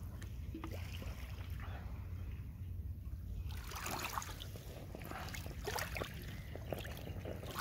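Shallow river water lapping and trickling over a pebble shore, with small splashes and clicks that get busier from about three and a half seconds in, over a steady low rumble.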